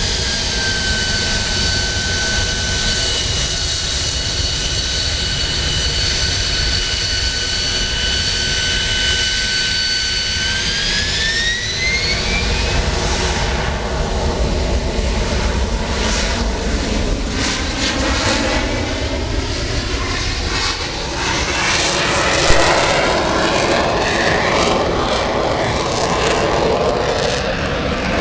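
Harrier jump jet's Pegasus turbofan whining steadily, then spooling up with a rising whine about ten seconds in, becoming a loud jet roar that sweeps past as the jet makes its takeoff run. There is one brief click about 22 seconds in.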